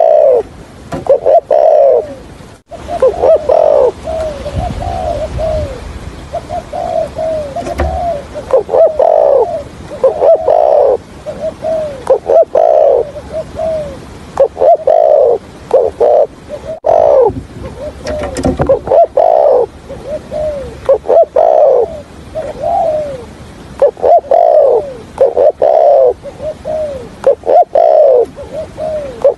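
Spotted dove cooing over and over in quick runs of short coos, each falling in pitch, with brief gaps between phrases.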